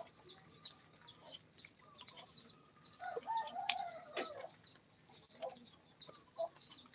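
Chickens calling in the background: a run of short, high chirps throughout, with a longer, lower call about three seconds in. A single sharp click sounds near the middle.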